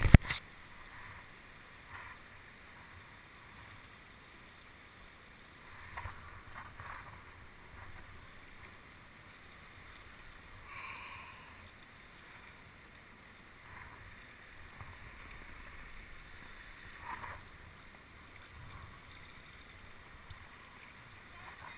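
Water lapping and sloshing around a kayak, with a few short soft splashes spread several seconds apart over a quiet, steady background.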